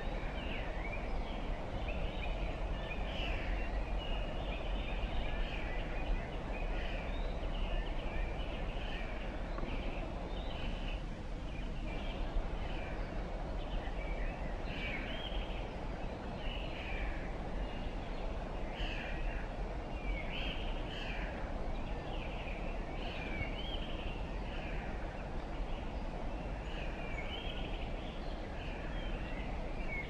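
Birds chirping: clusters of short, high calls repeat every second or so throughout, over a steady low background rumble and hiss.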